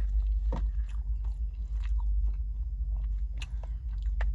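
Mouth chewing a soft rice, chicken and cheese bowl: wet smacks and mouth clicks, the sharpest about half a second in and near the end, over a steady low hum.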